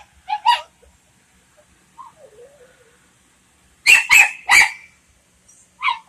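A dog barking: two short barks just after the start, then a quick run of three louder barks about four seconds in.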